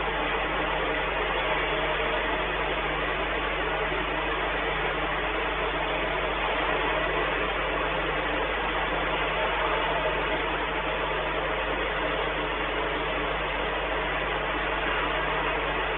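Steady machinery drone with an even hiss and a low hum, unchanging throughout.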